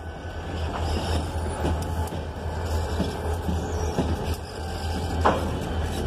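Two EMD SD40 diesel locomotives passing close by: a steady low engine rumble, with wheels knocking over the rail joints roughly once or twice a second and one sharper knock about five seconds in.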